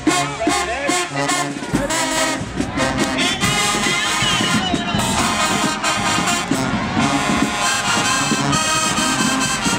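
Marching band music: brass horns and drums playing a loud upbeat tune, with crowd noise underneath.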